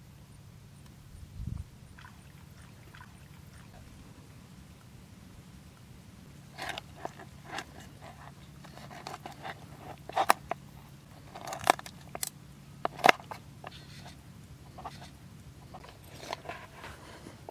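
Kitchen knife chopping raw chicken on a plastic cutting board: a run of sharp knocks and crunches that starts about six seconds in, with the three loudest strokes near the middle.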